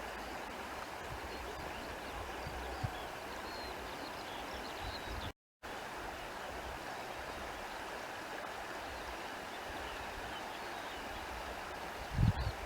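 Steady rush of running water from a stream, with faint high chirps above it. The sound cuts out completely for a moment about halfway through, and there is a brief low rumble near the end.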